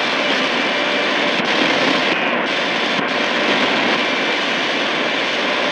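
Steady shortwave static and hiss from a Tecsun PL-880 receiver tuning up the 41-metre band between stations.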